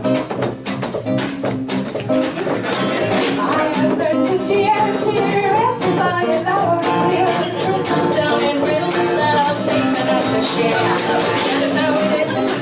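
Live folk song: a woman singing lead over a strummed acoustic guitar, with a hand-held frame drum keeping the beat.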